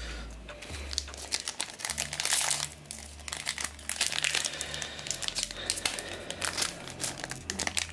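Foil trading-card booster pack crinkling and tearing as it is opened by hand: a string of irregular rustles and crackles, densest about two seconds in and again around four seconds.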